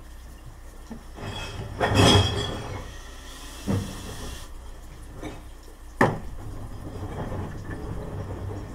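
Clatter and sharp knocks of a cordless drill-driver and screws being handled against wooden beehive panels: a loud clatter about two seconds in and sharp knocks near four and six seconds, over a steady low rumble.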